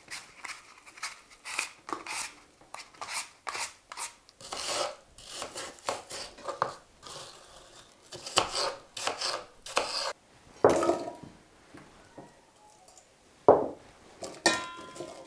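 Apples being peeled and cut with a small kitchen knife on a cutting board: a quick run of short scrapes and chopping strokes. Near the end, diced apple pieces are scraped into a stainless steel pot with a spatula, with a few louder knocks and a faint ring of the pot.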